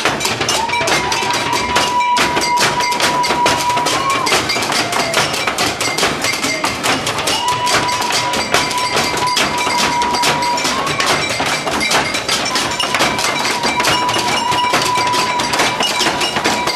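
Rapid, continuous banging on pots, pans and kitchen utensils, many clattering strikes a second in an improvised kitchen percussion jam. A high wavering note is held over it several times.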